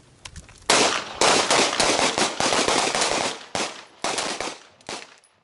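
Rapid gunfire: many shots close together for about two and a half seconds, then a few separate shots near the end.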